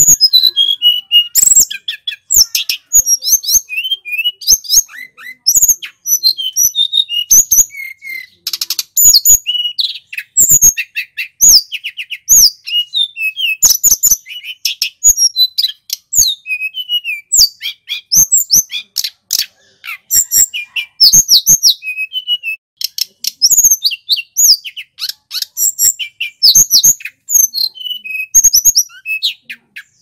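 Male tledekan gunung (sulingan gunung), a Cyornis blue flycatcher, in full song: a long, loud, clear run of quick high whistled notes, many sliding up or down, varied and nearly unbroken with only short pauses.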